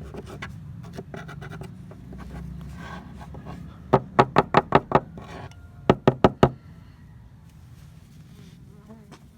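Sharp knocks in two quick runs, about five then four in a row, over a low steady buzzing hum that stops about two-thirds of the way through.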